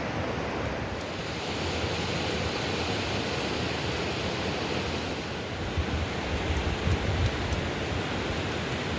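Steady rushing wind of a mountain snowstorm, with stronger gusts buffeting the microphone about six to seven seconds in.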